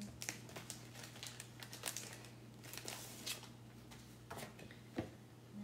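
Faint, irregular rustling and crinkling with scattered soft ticks: plastic stencil transfer sheets and craft supplies being handled on a work table.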